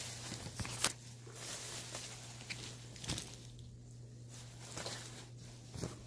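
Handling noise of small items being put back into a bag: rustling and a few light knocks, over a steady low hum.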